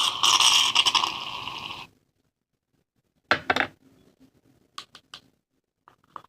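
Aerosol shaving cream can spraying foam in one steady hiss of about two seconds, starting abruptly. A knock follows about three seconds in, then a few light clicks.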